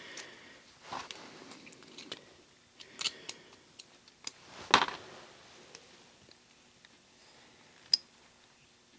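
Light metal clicks and clacks of an old METCOID 1/4-inch ratchet's opened mechanism being worked by hand, freshly sprayed with WD-40 and still gritty with debris. The clicks come irregularly, the loudest about three and five seconds in, with a sharp single click near the end.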